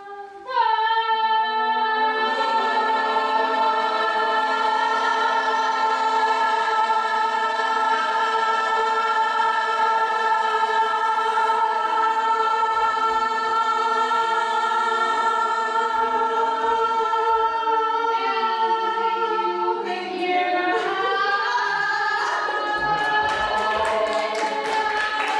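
A group of voices sings one long held chord of several sustained notes. After about twenty seconds the notes slide down and break apart, and hand clapping starts near the end.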